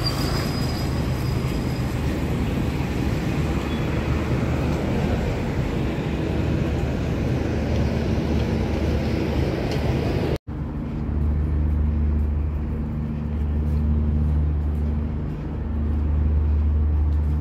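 Roadside traffic noise of passing cars. About ten seconds in, a cut brings a steady low drone.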